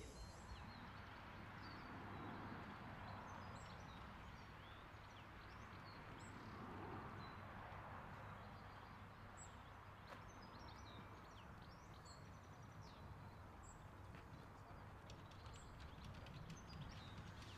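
Faint outdoor ambience with small birds chirping and singing on and off. A few light clicks come near the end.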